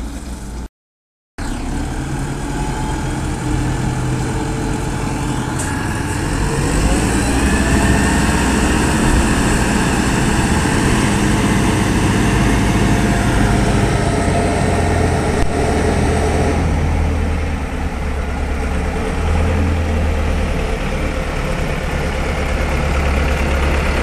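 Backhoe loader's Cummins B3.3 four-cylinder diesel engine running steadily as the machine drives. The sound drops out completely for about half a second, about a second in.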